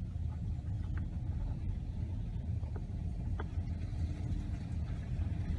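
Car driving over a rough, washed-out gravel road, heard from inside the cabin: a steady low rumble with a few light clicks.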